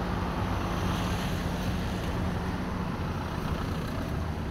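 Steady low engine hum of a traditional sailing ship motoring with its sails furled, over outdoor wind noise. The hum weakens about three seconds in.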